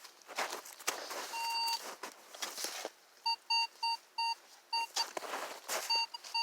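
Metal-detecting pinpointer beeping over a target in a dig hole: one long beep about a second and a half in, then short beeps repeating about three times a second from about halfway. Scraping of soil being dug and handled runs between the beeps.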